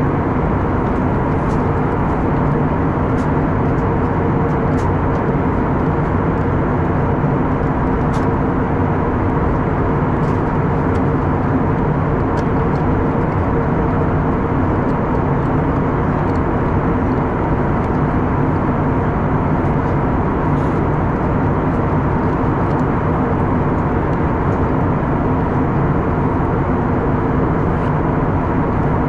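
Airbus A321neo cabin noise at a window seat beside the wing and engine during descent: a steady engine drone and rush of air with a constant hum.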